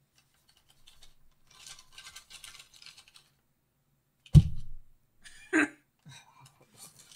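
Crinkling plastic and foil as an MRE entree pouch is slid out of its flameless ration heater bag, followed by a loud thump about four seconds in and a shorter knock a second later.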